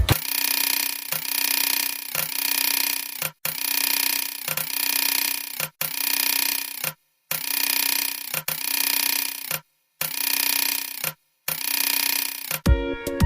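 Repeated rasping tool strokes, about one a second, some broken off by brief silences.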